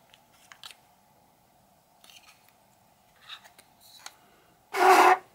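Anker Soundcore Life P2 plastic earbud charging case being handled: a few faint clicks and rubs, then a loud, harsh scrape lasting about half a second near the end.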